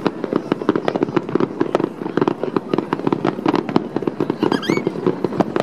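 Fireworks display: a dense, continuous string of sharp bangs and crackles as many shells and low barrage bursts go off in quick succession.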